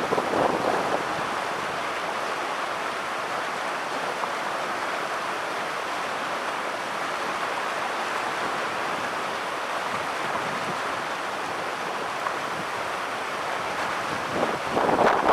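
Typhoon-swollen river water rushing in a steady, even roar. Gusts of wind buffet the microphone in the first second and again near the end.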